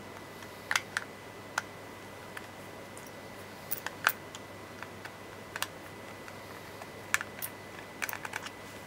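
Irregular light clicks and ticks of a small precision screwdriver working tiny screws out of the plastic back shell of a Samsung smart TV remote, with the plastic casing handled between turns. The clicks come singly and in short quick clusters, the loudest about four seconds in.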